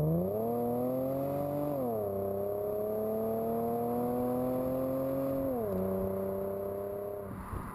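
Car engine and exhaust accelerating hard. The pitch climbs, drops sharply twice as it shifts up a gear, then the sound fades away near the end.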